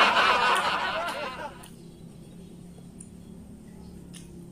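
Laughter with a rapidly bobbing pitch, fading out about a second and a half in, followed by low quiet with a couple of faint clicks.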